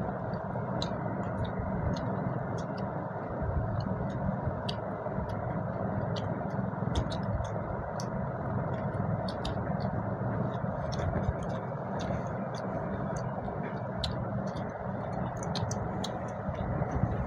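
People eating rice and fish curry by hand: many small wet clicks of chewing and lip-smacking, scattered irregularly over a steady low hum.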